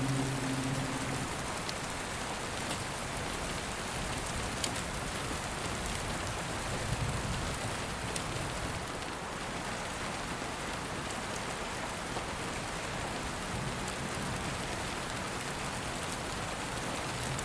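Steady rain: an even hiss with a few sharp drop ticks.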